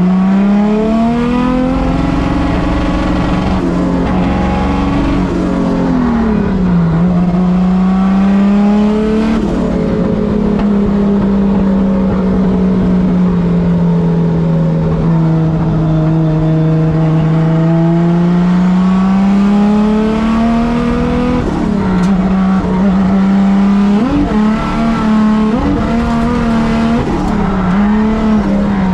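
Car engine running with a bad misfire, its note rising and falling slowly as the revs change, over a rough, uneven rumble.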